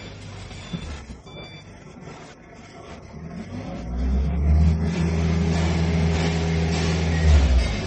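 Heavy diesel engine revving up about four seconds in and running loud and steady under load, easing off just before the end.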